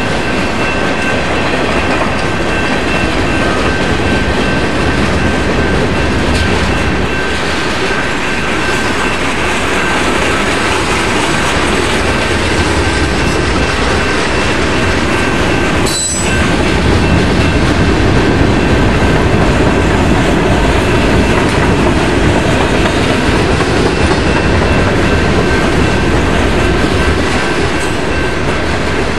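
Freight train rolling past: steel wheels clattering over the rails as boxcars, tank cars and covered hoppers go by, with a steady high-pitched tone over the rumble. A single sharp click sounds about halfway through.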